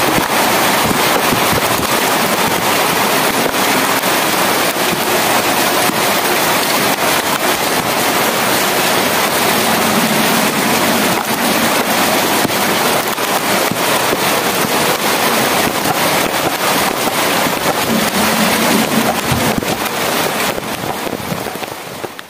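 Rain falling steadily, a dense patter of drops, fading out near the end.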